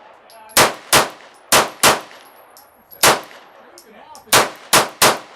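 9mm semi-automatic handgun fired eight times in an uneven rhythm, mostly in quick pairs with short pauses between them.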